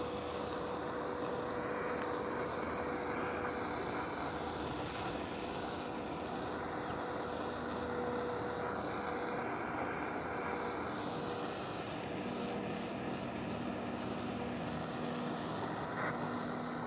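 Handheld butane crème brûlée torch burning with a steady hiss.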